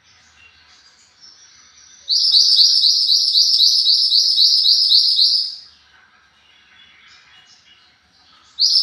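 Song of the mantenan gunung, played as a masteran recording: a loud, fast trill of repeated high-pitched downslurred notes, about four a second, from about two seconds in until about five and a half seconds. The trill starts again just before the end, and there are faint scattered chirps in the gaps.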